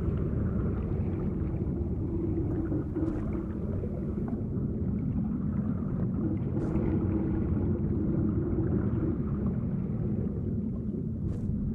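Low, steady, muffled rumble of underwater ambience, with three faint short high ticks spread through it.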